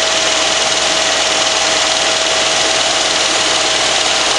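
GMC Sierra's 350 small-block V8 idling steadily, heard close up in the open engine bay, with a steady whine running through it. The engine holds an even idle with no revving.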